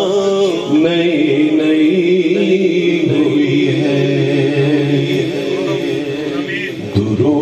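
A man singing a naat, an Urdu devotional poem, into a microphone, drawing out long, wavering held notes.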